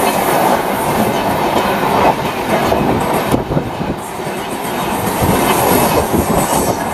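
Indian Railways express passenger coaches rolling past close by, a loud continuous rumble of wheels on the rails with irregular sharp clicks and clatter from the wheels and bogies.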